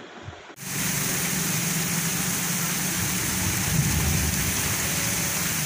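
Heavy rain pouring steadily onto a flooded street: an even hiss with a low rumble underneath, starting about half a second in.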